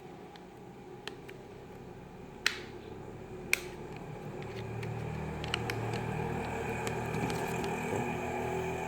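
A low mechanical hum that grows louder about halfway through, with a few sharp clicks, two of them loud, in the first half.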